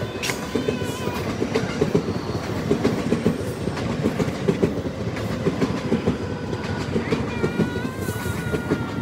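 Electric commuter train passing close below, its wheels clattering in quick irregular knocks over rail joints and switch points.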